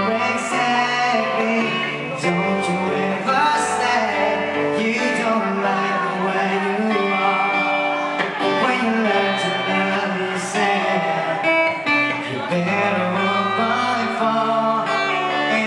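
Acoustic guitar strummed live, carrying the song through a break between sung lines.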